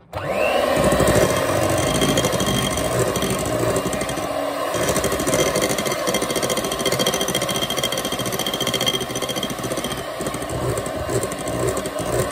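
Electric hand mixer beating cake batter in a glass bowl, its motor running steadily. It starts suddenly with a brief rising whine as it spins up.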